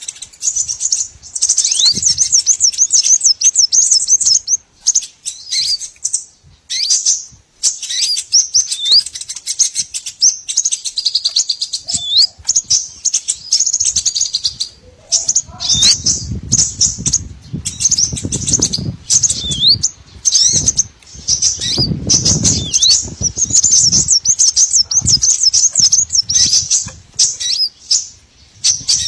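Bird-lure recording of small songbirds chirping and twittering rapidly and continuously at a high pitch, many short calls overlapping, with a few quick upward-sweeping notes. A low rumble underlies the calls through the second half.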